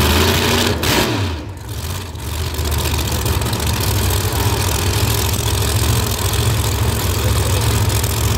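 Drag racing cars' engines running at the starting line. The sound dips briefly about a second in, then settles into a steady loud running.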